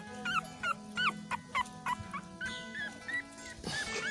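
Newborn puppy, eyes still closed, whimpering in repeated short, high-pitched cries, a few a second, each rising and then falling in pitch.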